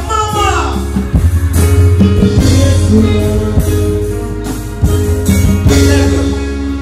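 Dancehall riddim playing loud through the stage sound system, with a heavy bass line and a steady drum beat. A falling pitched glide sounds in the first second.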